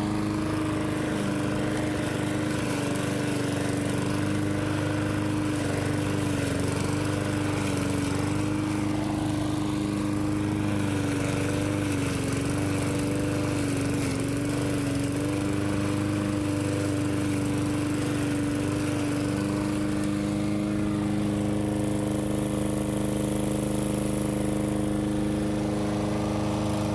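Lawnmower engine running steadily. Its pitch wavers slightly about halfway through, and the sound grows fuller near the end.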